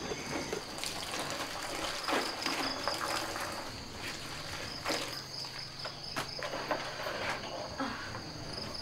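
Clothes being hand-washed in a plastic basin under a running tap, with water splashing in short strokes every second or so. A steady high chirring runs underneath.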